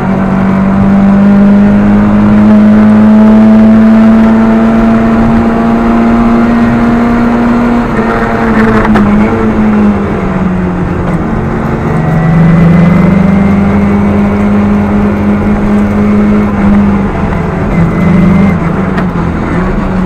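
Rally car engine heard from inside the cockpit, held at high revs under load with its note climbing slowly, dropping off about eight seconds in with a short burst of noise, then pulling and climbing again before easing near the end.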